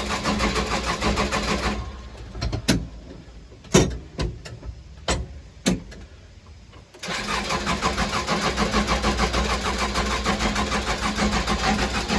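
Case 580 Super L backhoe's diesel engine turning over on the starter without catching. The cranking stops about two seconds in, a few sharp clicks and knocks come in the pause, and the cranking starts again about seven seconds in. The engine is not firing because it was run out of fuel and the fuel system is still being primed.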